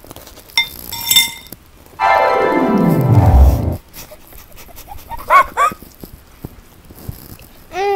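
Edited-in cartoon-style sound effects. Two short tones come first, then a loud tone slides steadily down in pitch for about two seconds into a low rumble and stops. Two quick rising-and-falling chirps follow, and another falling chirp comes near the end.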